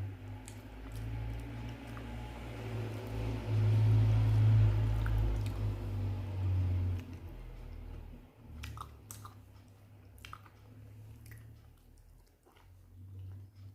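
Close-miked chewing of a mouthful of rice and fish curry, a low rumble for the first seven seconds, then softer wet mouth clicks and smacks.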